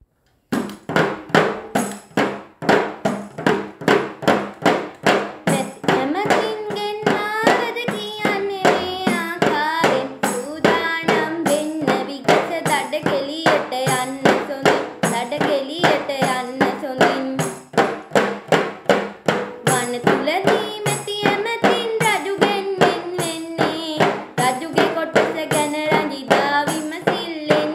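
A girl sings in a child's voice while striking a headed tambourine with jingles in a steady beat of about two strikes a second. The tambourine plays alone at first, and the singing comes in about six seconds in.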